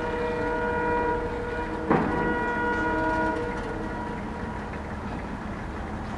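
An approaching WDG4 diesel locomotive sounds a long multi-tone horn, held steady and ending about three seconds in. There is a single sharp click about two seconds in, and after the horn stops a steady rumble of the oncoming train.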